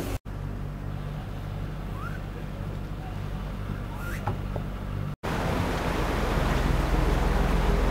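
Fishing boat's engine running steadily, a low hum heard inside the wheelhouse. After a cut about five seconds in, a louder rush of churning wake water over the engine at the stern.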